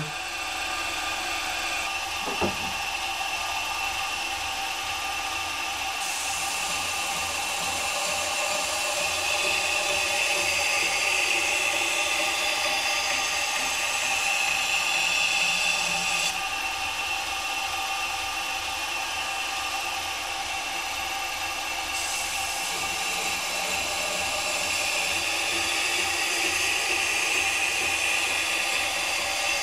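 Variable-speed belt grinder running slowly with a steady motor whine, as the edge of a 1095 carbon steel knife blade is ground on the belt in passes; the grinding hiss swells through the middle and again near the end. This is the cutting edge being formed and the burr raised.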